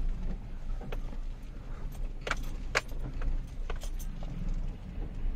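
Inside a moving car on a wet road: a steady low rumble from the engine and tyres, with about half a dozen short, sharp clicks scattered through it.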